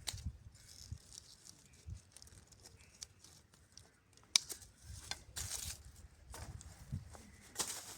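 Intermittent rustling and crinkling with scattered small clicks, including one sharp click about halfway through.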